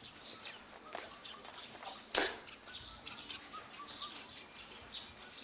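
Small birds chirping, with a few short sharp swishes, the loudest about two seconds in.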